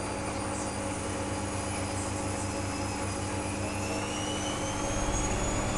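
Washing machine running with a steady motor hum; about halfway through, a whine starts rising in pitch as the drum speeds up.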